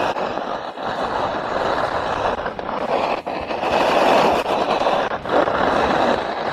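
Short Summit skiboards carving across groomed snow: the edges scrape with a rough hiss that swells and eases through the turns.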